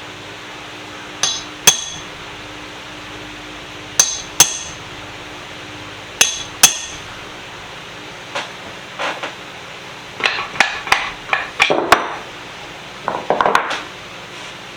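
Hammer blows on steel, ringing metallically and coming in three pairs of quick strikes, most likely driving a pin out of a cast-iron bench vise with a punch. Near the end comes a run of lighter metal knocks and clinks.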